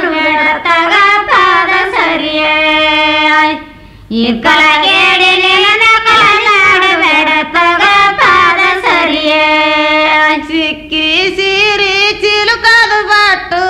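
Women singing a Kannada folk wedding song (sobane pada), with long held and sliding notes. The singing breaks off briefly about four seconds in, then carries on.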